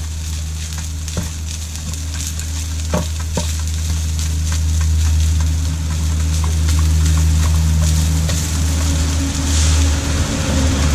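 Rice frying with a light sizzle in a frying pan while a wooden spatula stirs and scrapes it, with a few short knocks of the spatula against the pan. A steady low hum runs underneath and grows louder about halfway.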